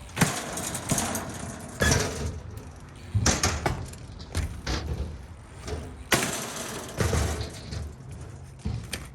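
A BMX bike being ridden through a trick line: rolling tyre noise, broken by several sharp knocks and scrapes from landings and hard contacts.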